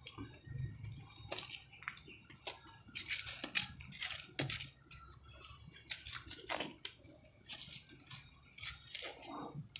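Hand tool digging in soil around ube tubers: irregular scrapes and knocks.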